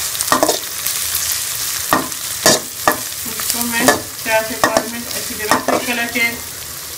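Chopped chongay frying in ghee in a kadhai with a steady sizzle, while a metal spatula stirs and scrapes them against the pan in repeated strokes.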